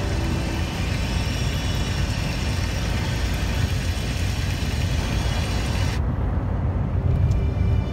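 Heavy goods vehicle cab at motorway speed: a steady low engine and road rumble. The higher hiss cuts out suddenly about six seconds in.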